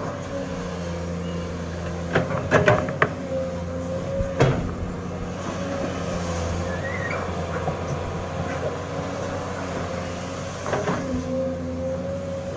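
Sany excavator's diesel engine running steadily, with a few sharp clanks: a cluster about two seconds in, a single one about four and a half seconds in, and another cluster near the end.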